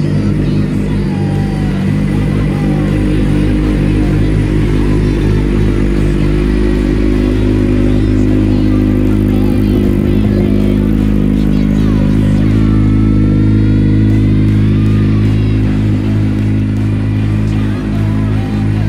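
Suzuki GSX-R600's inline-four engine idling steadily through an SC Project carbon slip-on exhaust.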